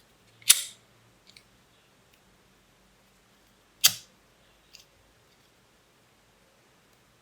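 A handheld lighter struck twice, a few seconds apart, each strike a sharp click with a brief trailing rasp. The flame is being used to seal folded ribbon edges. Faint small clicks of handling come between the strikes.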